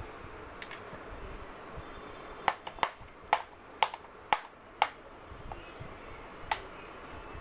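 A run of six sharp taps about half a second apart, then a single tap about a second and a half later.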